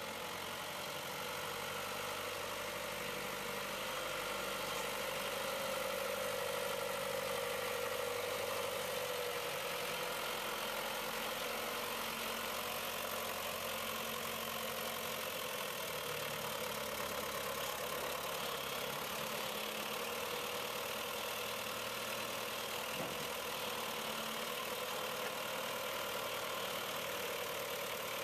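John Deere 2650 tractor's four-cylinder diesel engine running steadily as it drives and works the front loader, its engine speed shifting a few times.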